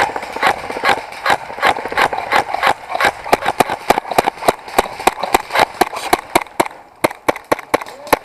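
A CO2-powered Marushin FN Five-seveN airsoft pistol firing a long string of rapid semi-automatic shots, about four sharp cracks a second, unevenly spaced and thinning out near the end.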